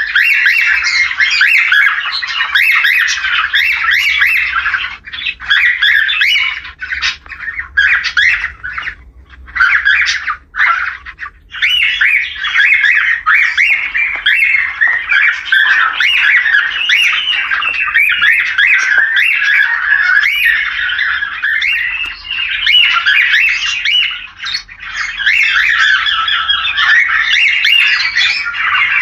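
Cockatiel courtship chatter: a dense, nearly continuous run of squawks and chirps, with a few short breaks about five to twelve seconds in. It is a mating-call recording of the kind played to breeding pairs to bring them into condition.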